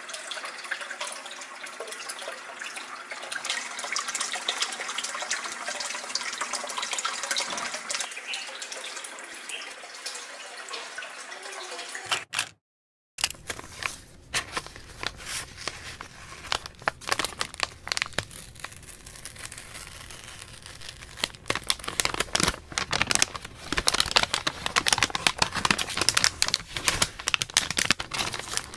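Aquarium water bubbling steadily from an air stone. After a short gap, hands unwrap a paper-wrapped package, with paper rustling and crinkling and a plastic sleeve of pens crackling.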